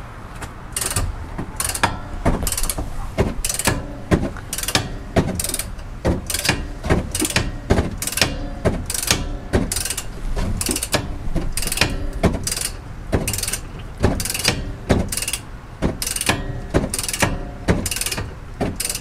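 Ratchet head of a click-type torque wrench clicking in short runs as it is swung back and forth on short strokes, tightening a rear brake caliper guide bolt.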